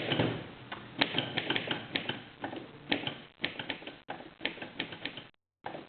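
Corona 4 manual portable typewriter being typed on: a run of sharp, irregular key clacks, several a second, as typebars strike the platen.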